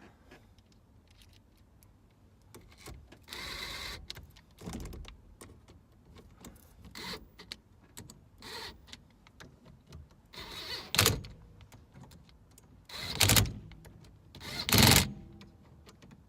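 Hands-on work on a car's steering wheel and hub: scattered small clicks and scrapes, a longer rattling scrape a few seconds in, and three louder brief clunks in the second half.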